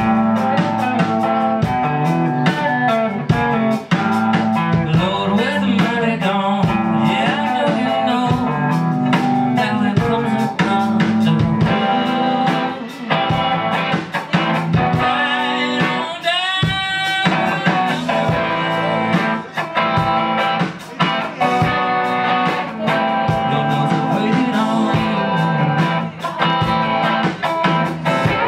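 Live rock band playing loudly: two electric guitars, bass guitar and drum kit keeping a steady beat, with a quick rising guitar glide about halfway through.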